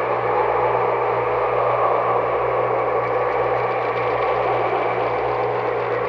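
Horror sound-effect ambience: a steady, unchanging drone of low held tones under a dense hissing mid-range wash, with no separate events.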